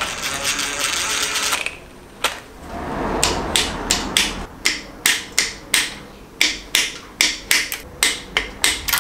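A cordless drill-driver runs in one steady burst for about a second and a half, driving in the water pump bolts. Then a socket ratchet clicks in quick strokes, about two clicks a second, as the bolts are tightened by hand.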